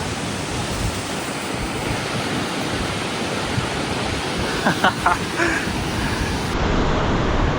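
Steady rush of Vernal Fall heard close up in its spray: dense, even noise of falling water, with wind buffeting the microphone.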